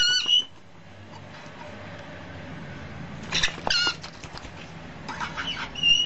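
Baby white-bellied caiques giving short, high chirping calls in three quick clusters: at the start, a little after three seconds in, and near the end.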